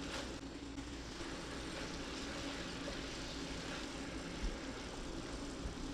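Pork meatballs and bok choy leaves sizzling in sauce in a skillet as a spatula tosses them, a steady hiss while the leaves wilt, with a light tap about four and a half seconds in.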